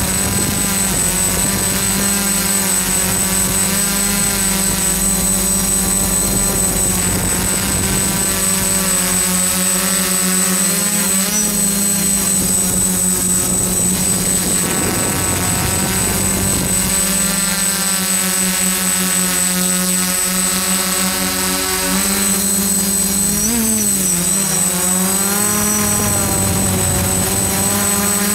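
DJI F-550 hexacopter's electric motors and Graupner propellers buzzing in flight, heard up close from a camera carried on the craft. The buzz holds steady, its pitch wavering briefly about eleven seconds in and again around twenty-four seconds as the motors change speed. A steady high whine sits above it.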